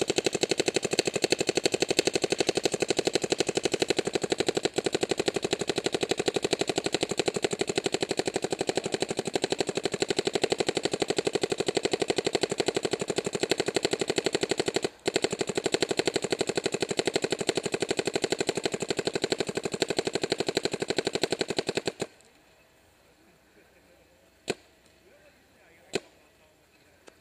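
DLX Luxe 1.5 electropneumatic paintball marker firing in PSP ramping mode: a long, rapid, even string of shots with a brief break about halfway, stopping about 22 seconds in. Two single shots follow near the end.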